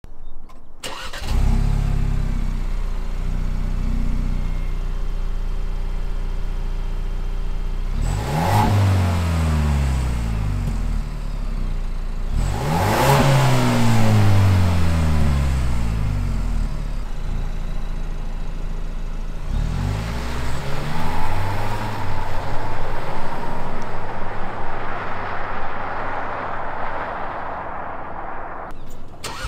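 Ford Bronco's 2.3L EcoBoost turbocharged four-cylinder on its stock exhaust, starting about a second in and settling to idle. It is revved three times, each rising and falling away, the last one smaller. It then pulls away under throttle.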